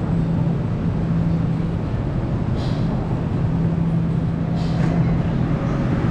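Steady low mechanical hum over a constant background rumble, with a couple of brief higher sounds about two and a half and four and a half seconds in.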